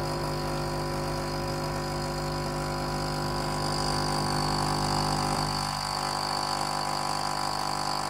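NESCAFÉ Dolce Gusto Majesto capsule coffee machine's pump running with a steady hum as it forces hot water through a milk capsule, dispensing milk into the glass.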